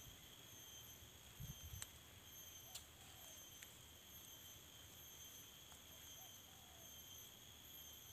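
Faint, steady chorus of insects, a continuous high-pitched drone. A couple of soft low thumps and a few light clicks come about one and a half to three and a half seconds in.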